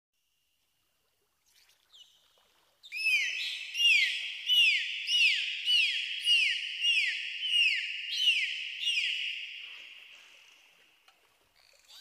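Dolphin whistling: a quick series of about a dozen high chirps, each rising and then falling in pitch, about two a second, starting about three seconds in and fading away near the end.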